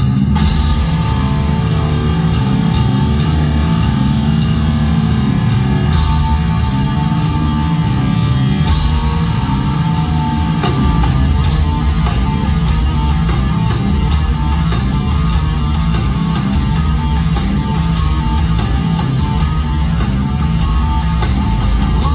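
A heavy rock band playing live: distorted guitar and bass held under drums. Single cymbal crashes come every few seconds at first, then about halfway through the drums break into dense, rapid cymbal and drum strokes.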